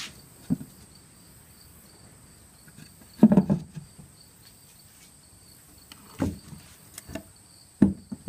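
Insects chirping steadily in the background, with a few short dull knocks and handling noises, the loudest about three seconds in.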